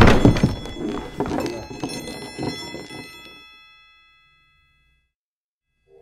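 A burst of heavy thuds and clattering with high metallic ringing tones, dying away gradually and gone by about four seconds in.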